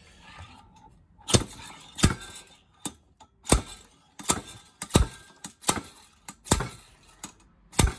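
Harbor Freight slide-hammer bearing puller being struck back over and over: about ten sharp metal clanks, roughly one every 0.7 s, as it draws a blind bearing out of a motorcycle engine crankcase. The bearing is coming loose under the blows.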